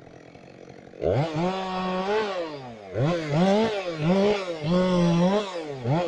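A two-stroke chainsaw ticks over quietly at idle. About a second in it is throttled up sharply to full speed and bites into a felled conifer log. Its engine note sags and picks up again several times as the chain cuts through the wood.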